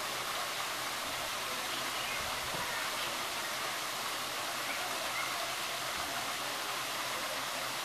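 Steady rush of water from a shower spray splashing into a pool.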